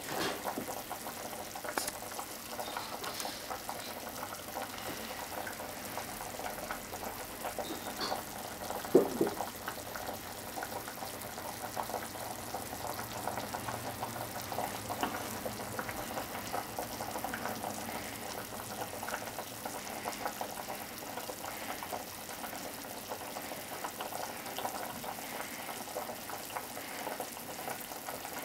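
Steady bubbling and crackling of a pot of liquid simmering, with one sharp thump about nine seconds in.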